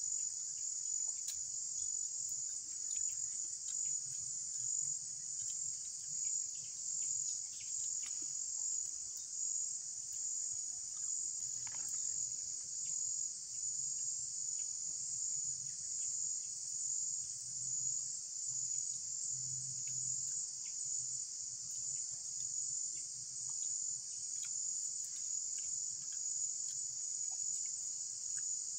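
A steady, high-pitched chorus of insects, such as crickets or cicadas, trilling without a break, with faint scattered clicks under it.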